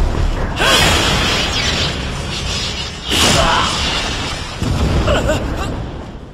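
Battle sound effects: two loud blasts of weapon fire with sliding whooshes, about half a second and about three seconds in, over background music.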